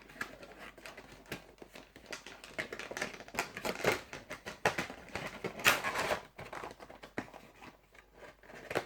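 A Funko Pop vinyl figure and its cardboard box with plastic window being handled: irregular clicks, taps and rustles, with a couple of louder knocks about four and six seconds in.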